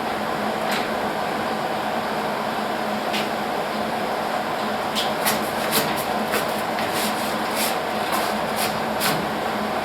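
A steady mechanical hum runs throughout. About halfway through, a quick run of sharp clicks and crackles starts and lasts for about four seconds.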